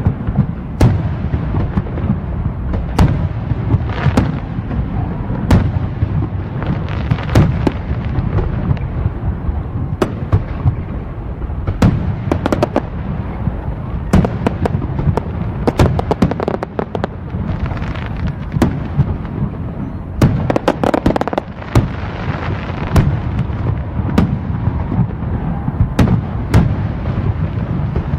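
Fireworks going off continuously: a dense, rolling low rumble of bursts with many sharp cracks scattered irregularly on top, thickest about three quarters of the way through.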